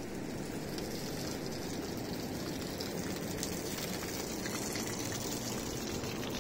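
Water gushing steadily from an open pipe and splashing onto stone and wet ground.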